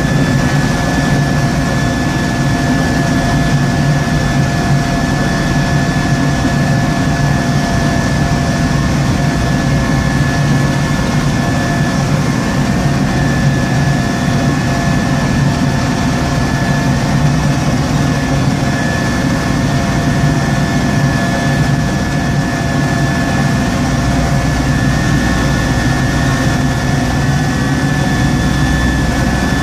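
Small Kubota tractor's engine running steadily, driving a front-mounted snowblower as it throws snow, heard from inside the cab, with a thin high whine over the engine hum.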